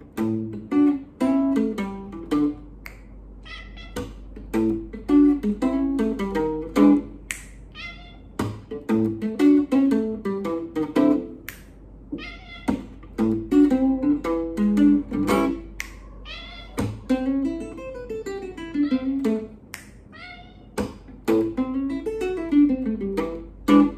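A guitar picking a blues, in single notes and descending runs, with a cat meowing along several times.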